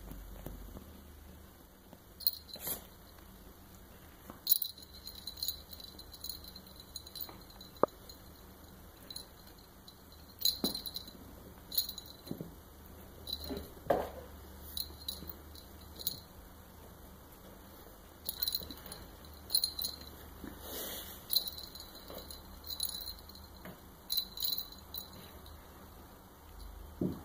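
Small metal bell on a wand cat toy jingling in short, irregular bursts as a kitten bats and bites at it, with occasional rustling of the crinkly synthetic sheet beneath it.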